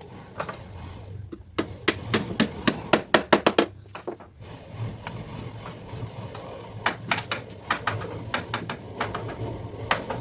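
Quick runs of sharp knocks on wood, as in hammering on teak furniture parts. One run is about two seconds in and another starts near seven seconds, over a low steady hum.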